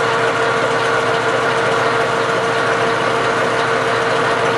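Metal lathe running while a parting tool cuts into the spinning workpiece to part it off. A steady, high-pitched whine sounds over the noise of the cut.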